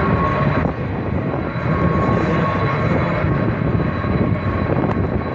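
Jet engines of large military transport aircraft taxiing: a steady rumble with a high, steady turbine whine over it.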